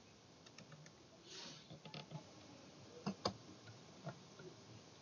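Faint, irregular clicks and taps of a computer mouse being handled, with two sharper clicks a little after three seconds in and a brief rustle about a second and a half in, over low room hiss.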